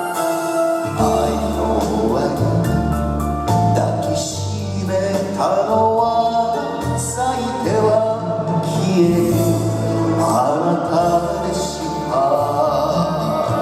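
Backing music of a Japanese ballad playing between sung lines: a melody over changing bass notes, with no lead vocal.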